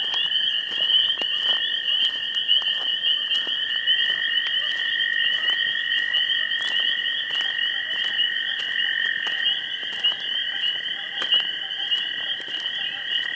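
Night chorus of crickets and frogs: a continuous high, fast trill with a second, lower steady trill beneath it, and scattered short clicks and calls throughout.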